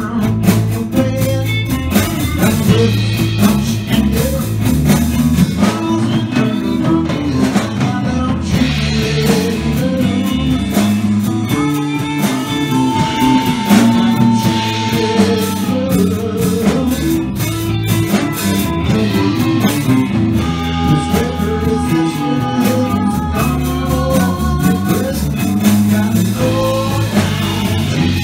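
Live blues band playing: electric guitar and bass guitar over a drum kit, with sung vocals.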